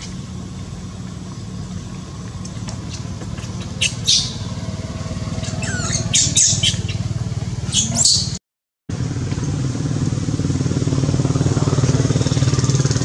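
A steady low engine hum, like a nearby motor idling, with a run of short, sharp high-pitched squeals and chirps in the middle. The sound cuts out completely for a moment about two-thirds of the way through, then the hum comes back louder.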